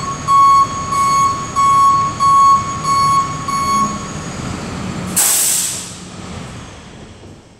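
Tow truck backing up, its reversing alarm beeping about one and a half times a second over the running engine. The beeping stops about four seconds in, and a second later the engine note drops away and a loud hiss of released air bursts out and fades.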